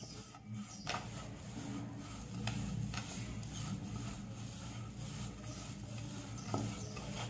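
Gloved hand rubbing and scraping a crumbly spice mix moistened with lime juice around a plate: a soft, steady scratching with a few light taps.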